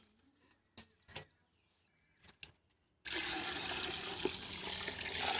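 Near silence with a few faint clicks, then about three seconds in, water poured from a steel bowl starts splashing steadily into a pot packed with herb leaves.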